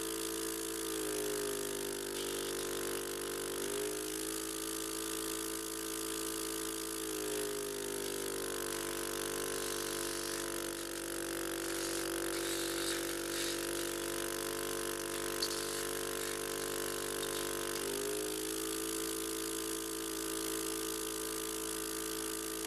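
Portable suction machine's pump motor running steadily during oral suctioning, a humming tone that shifts in pitch a few times.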